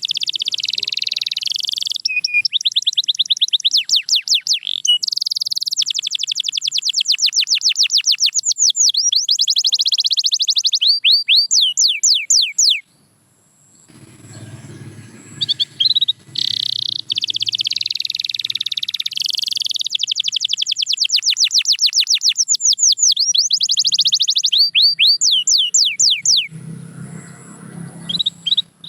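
Domestic canary singing: long phrases of rapid, repeated high notes and fast trills, which break off twice, once around the middle and once near the end.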